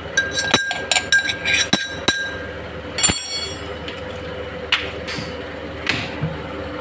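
Metal clinks of a spoon or spice tin against a large steel cooking pot, several sharp ringing strikes with the loudest about three seconds in, over a steady hum.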